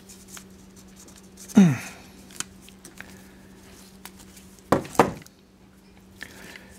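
Hand crimping pliers squeezed shut on a crimp terminal on a thermal fuse lead: a short loud creak falling in pitch about one and a half seconds in, then two sharp clacks of the tool about five seconds in.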